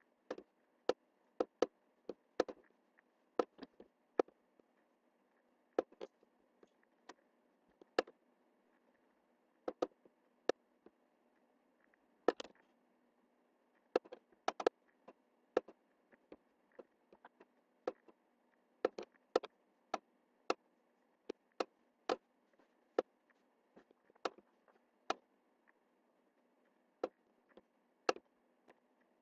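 Computer mouse buttons clicking at an uneven pace, single clicks and quick pairs, over a faint steady hum.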